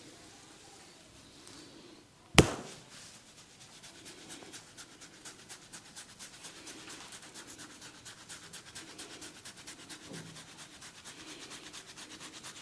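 A single loud, sharp crack, followed by a barber's hands working the head and ears in quick, even strokes, about four a second.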